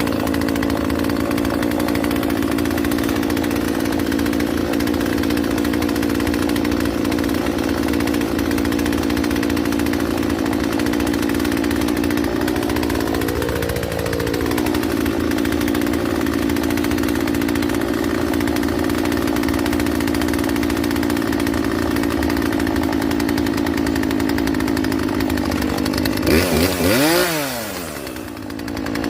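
Poulan Wild Thing 40cc two-stroke chainsaw engine idling steadily. It wavers briefly about halfway, and near the end it revs up quickly and drops back to idle.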